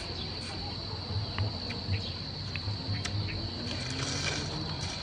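Insects chirring in one steady, high, even tone, with soft chewing and faint clicks as a cooked river prawn is eaten.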